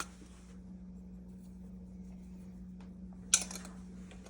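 Soft rubbing and scraping from food being seasoned, with one short rasp a little over three seconds in, over a steady low hum.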